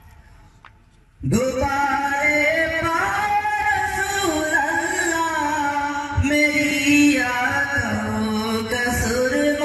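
Solo male voice singing a naat, an Islamic devotional song, into a microphone. The voice comes in about a second in after a short pause and holds long, bending notes.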